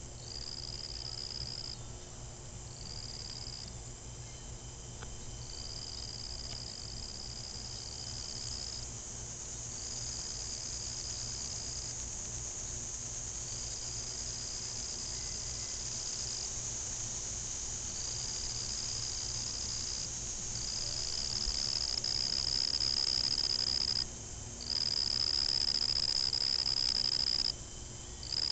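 Singing insects: a high-pitched steady trill in bouts of one to a few seconds with short breaks, over a constant higher hiss of more insects, getting louder in the last few seconds.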